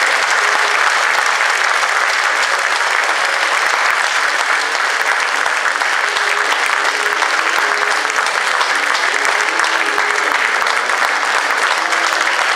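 Theatre audience applauding steadily, a dense clatter of many hands clapping at once.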